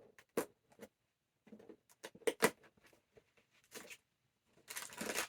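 Cardboard advent calendar box being handled, with scattered small clicks and taps, then from near the end a steady crinkling of a plastic bag.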